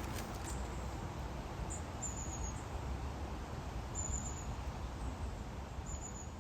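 Garden ambience: a steady background hiss and rumble, with a small bird's thin, high call three times, about two seconds apart.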